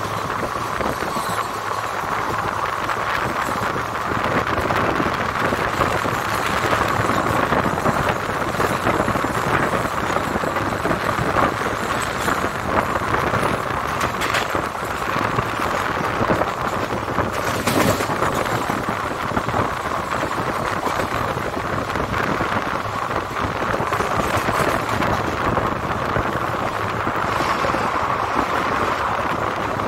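Steady running noise of an Indian Railways express passenger coach, its wheels rolling over the rails, heard from the open coach doorway. Two sharp clicks come a few seconds apart near the middle.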